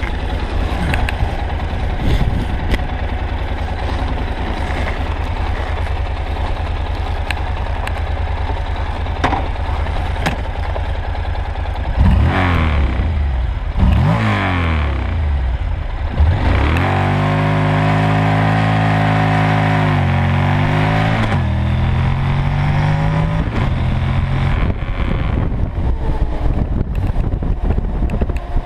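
Honda NC700X's parallel-twin engine, heard from the tank, running at low revs. About twelve seconds in the revs climb hard three times with gear shifts in between, hold a steady high pitch for a few seconds, then fall away back to low revs.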